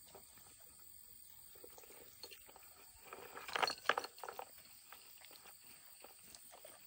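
Dog eating rice from a bowl: faint, irregular wet chewing and mouth clicks, with a denser, louder run of them about three to four and a half seconds in.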